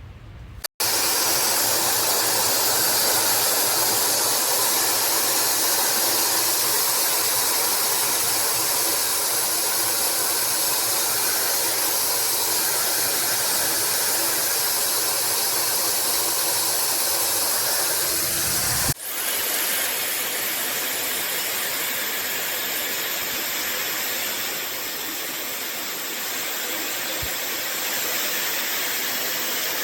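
T3 Aire 360 multi-styler hair dryer running and blowing air with a steady, loud hiss. It cuts out for an instant about two-thirds of the way through, then runs on slightly quieter with a thin high whine.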